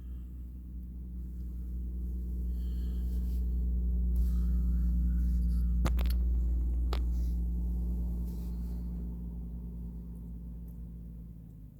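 A passing fishing boat's engine droning low and steady, growing louder toward the middle and then fading away as it goes by. Two sharp clicks come about a second apart in the middle.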